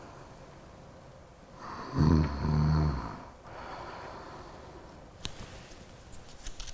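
A person imitating snoring through the nose with the mouth closed, the soft palate narrowed so it flutters. About two seconds in a drawn-in breath turns into a loud, low snore lasting about a second, followed by a softer, longer breathy exhale.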